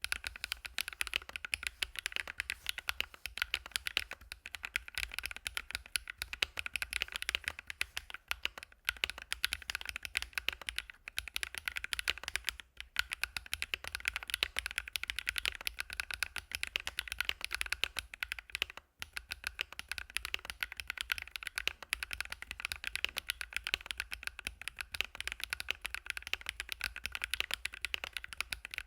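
Typing on an ABKO AR61D mechanical keyboard fitted with fully lubed Hyacinth v2 switches: a fast, dense run of key strikes, broken by two brief pauses.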